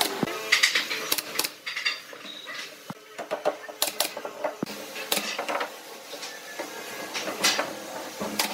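Pneumatic nail gun firing one nail after another at an irregular pace, each shot a sharp snap, driving nails through thin wooden strips into a frame.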